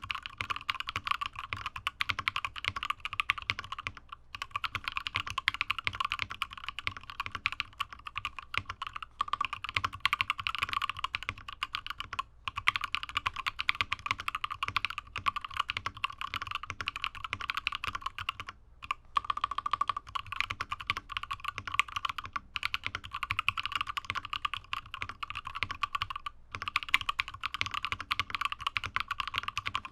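Continuous fast typing on a mechanical keyboard with KTT Rose linear switches on a carbon fibre plate, a dense run of key clacks with brief pauses every several seconds.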